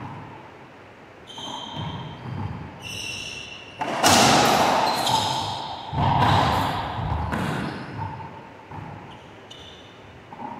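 Racquetball rally: two loud, sharp ball strikes about 4 and 6 seconds in, each ringing out with a long echo in the enclosed court, with high squeaks of sneakers on the hardwood floor in between.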